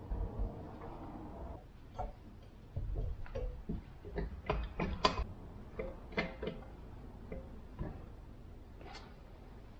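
Irregular metal clicks and knocks from hand work on a truck's rear axle and trolley jack, a dozen or so scattered over several seconds, with a low rumble in the first second and a half.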